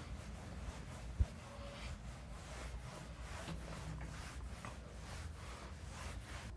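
Whiteboard being wiped with a cloth duster: a faint, quick series of rubbing strokes, with one short knock about a second in.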